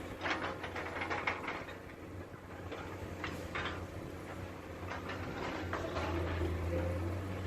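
Komatsu PC200 excavator's diesel engine running steadily, with a cluster of clattering knocks in the first second and a half and more around three seconds in.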